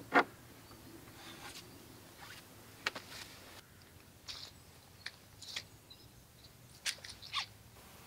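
Wooden boards being handled: a sharp knock just after the start as a wooden brace is set against a pine wall panel, then scattered knocks, clicks and rustles, including footsteps on leaf-strewn ground.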